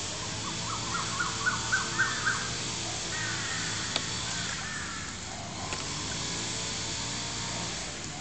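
A bird calling: a run of about seven short notes that climb in pitch and grow louder, then a few more scattered calls, over a steady background hiss. A single sharp click about four seconds in.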